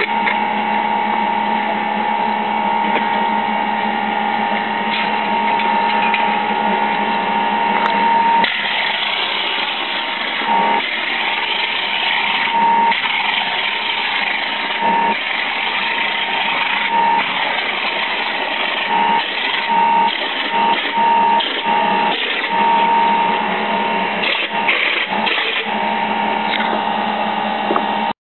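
Air compressor running steadily for a hopper plaster sprayer. From about eight seconds in, the sprayer's air hiss comes in repeated bursts as it sprays mortar onto a wall.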